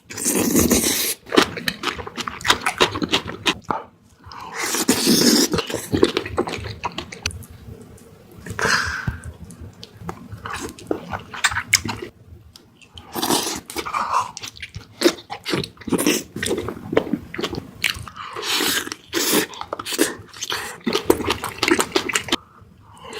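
Close-miked chewing and biting of spicy beef feet: wet mouth sounds that come in loud stretches every few seconds, with many quick clicks in between.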